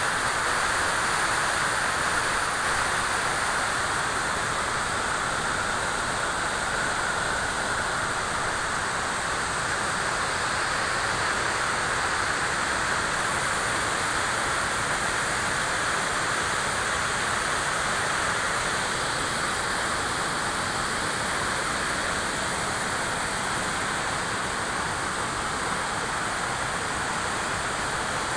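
Flowing river water rushing steadily, an even noise with no breaks or separate splashes.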